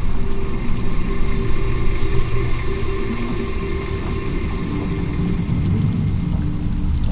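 Running water pouring steadily, a continuous low rushing sound.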